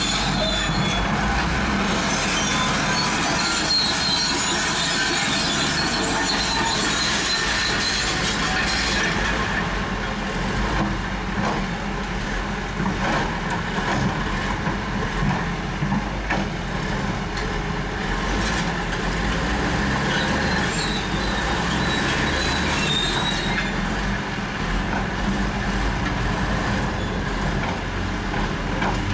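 Crawler bulldozer's diesel engine running steadily while its steel tracks clank and squeal as it pushes gravel, with a run of sharp clanks in the middle.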